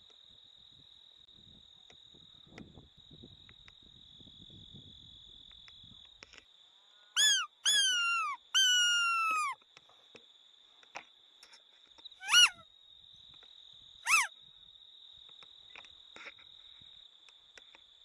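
Lip squeaks made by a hunter to call in foxes, imitating distressed prey: three falling squeals in quick succession about halfway through, then two shorter squeaks a few seconds apart. A steady high drone of crickets runs underneath.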